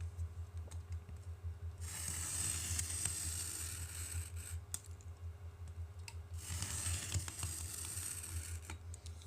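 Craft knife cutting along a fin slot in a model rocket body tube: two drawn-out scraping cuts of about two seconds each, the first starting about two seconds in, over a steady low hum.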